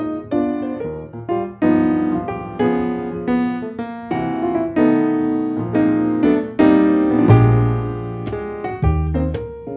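Background piano music: a run of struck melody notes and chords, with deeper bass notes coming in about seven seconds in.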